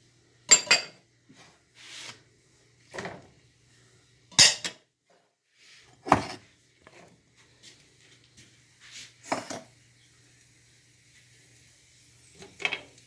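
Metal utensils clinking and knocking against a frying pan in separate sharp knocks, about seven spread a second or two apart.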